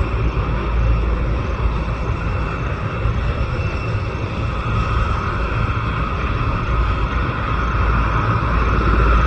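Helicopter running steadily, a loud low rumble with a higher hiss over it, growing slightly louder near the end.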